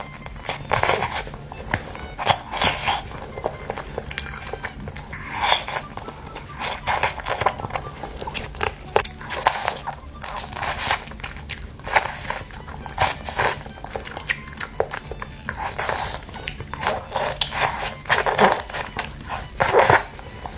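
Close-up biting and chewing of chicken, with irregular crunches and mouth sounds.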